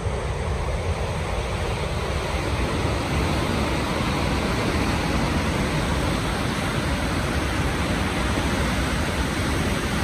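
Congo River rapids: a steady, loud rushing of fast brown whitewater breaking over rocks, a continuous noise with a strong low rumble.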